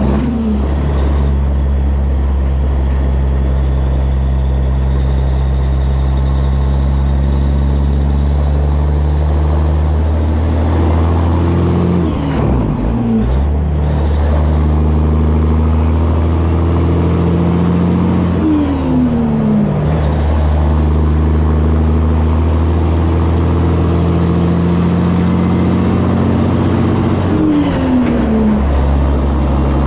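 1984 Peterbilt 362 cabover's diesel engine pulling the rig up to highway speed, heard from the back of its trailer. Three times the engine note falls away and then settles again as the driver shifts up through the gears.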